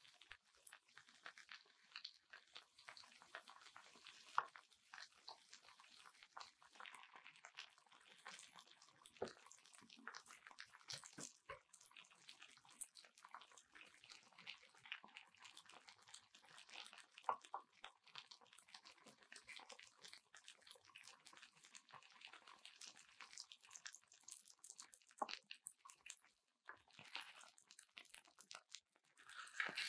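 Faint, irregular light clicks and scraping as a spatula spreads shredded mozzarella over shredded potato frying in a square nonstick pan, with a faint crackle of frying underneath.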